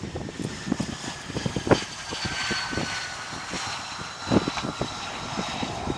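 F-35B jet's turbofan engine (Pratt & Whitney F135) running as the jet rolls along the runway, its high whine slowly falling in pitch. Under the whine is a gusty low rumble with irregular thumps, the loudest about a second and a half in and again past four seconds.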